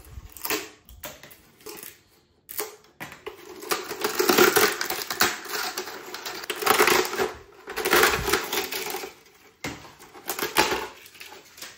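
PLA 3D-print support material being pulled and snapped off a printed part by hand: runs of dense crackling and sharp snapping, with short pauses between them.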